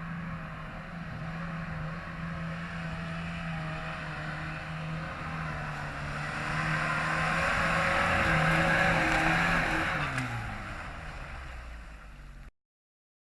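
Off-road vehicle's engine running steadily under load, with a rushing noise that swells in the middle. About ten seconds in, the engine drops in pitch as it eases off, and the sound cuts off abruptly near the end.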